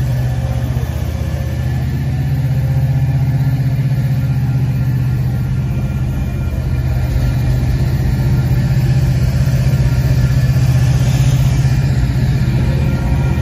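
Union Pacific diesel freight locomotives passing close by, their engines running with a steady low drone. A higher hiss of wheels on rail builds from about seven seconds in and eases off near the end.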